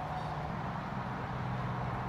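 A motor running steadily in the background, a low even hum with no handling noises over it.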